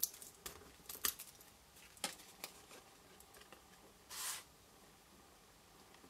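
Faint paper crafting handling: a few light clicks and ticks as foam adhesive dots are peeled from their backing sheet and pressed onto a card panel, then a short rustle of paper about four seconds in.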